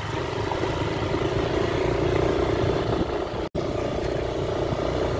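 Steady engine hum and road noise of a small motor vehicle, heard from aboard while riding. It cuts out for an instant about three and a half seconds in.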